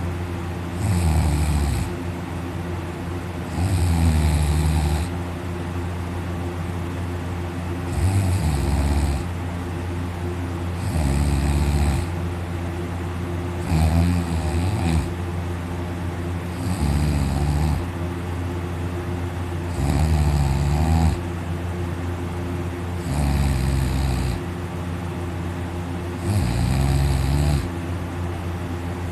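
A person deeply asleep on their back with the mouth wide open, snoring loudly: nine snores at a regular pace of about one every three seconds, each lasting about a second, over a steady low hum.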